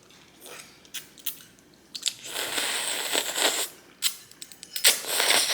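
Mouth sounds of eating ramen noodles: wet chewing and sharp lip smacks, with a long slurp about two seconds in and another short one near the end.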